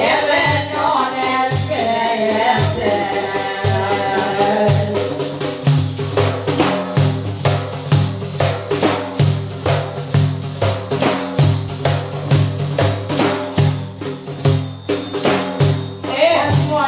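A woman singing to a def, a large frame drum with jingles round its rim: deep hand strokes on the skin and jingle rattles in a steady rhythm. The singing stops about five seconds in and the drum plays on alone, the voice coming back near the end.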